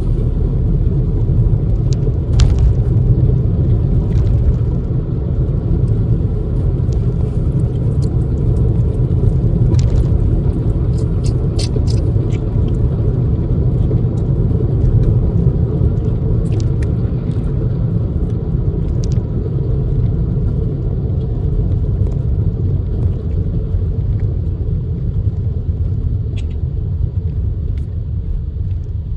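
Steady low rumble of road and engine noise inside the cabin of a moving car, with a few faint ticks.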